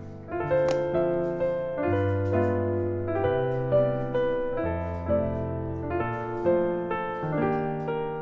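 Background music: solo piano playing chords and a melody.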